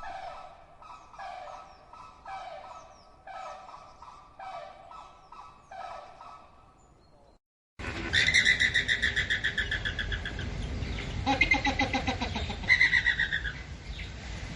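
Flamingos calling: repeated honks, one or two a second, then after a brief cut, a louder flock of flamingos with fast, pulsed, high-pitched calls.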